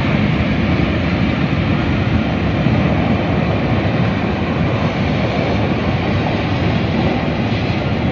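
Flash-flood torrent of muddy water and boulders rushing past: a steady, loud, deep rushing noise that does not let up.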